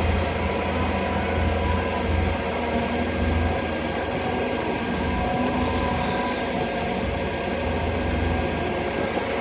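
Hydraulic excavator's diesel engine running steadily: a low hum with a faint whine above it.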